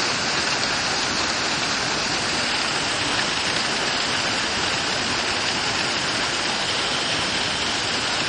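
Heavy downpour of rain mixed with hail, a steady, dense hiss.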